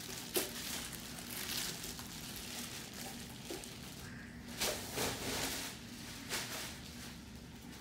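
Packaging being handled as a MIDI keyboard is unpacked from its box and foam: scattered rustling and soft knocks, with a sharp knock a little under half a second in and a louder flurry of rustling around the middle.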